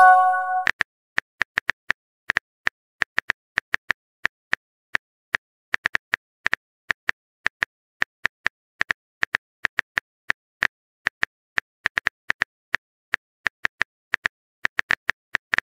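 A brief message chime, then a run of sharp clicks at uneven spacing, a few a second. This is the tapping of a phone-keyboard typing sound effect.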